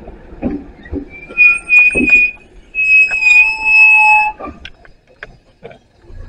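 Electronic door chime on a JR Central 313 series train: three short high beeps, then one longer held tone with a lower note beneath it, followed by a few light knocks from the door.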